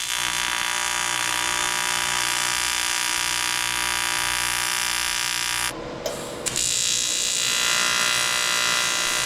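AC TIG welding arc on aluminum tubing, an ARCCAPTAIN TIG200P, buzzing steadily. The arc stops for about a second a little past halfway, then strikes again and buzzes on.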